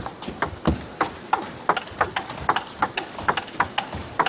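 Table tennis rally: the ball clicking off the paddles and bouncing on the table in quick alternation, about twenty sharp clicks a few tenths of a second apart.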